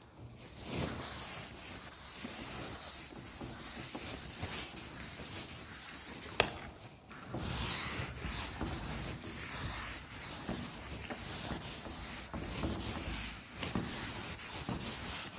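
Cloth duster wiping chalk off a blackboard: a run of brisk rubbing strokes, with a single sharp click about six seconds in.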